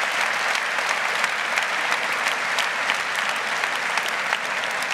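Theatre audience applauding: a steady wash of many hands clapping, with single sharp claps standing out from it.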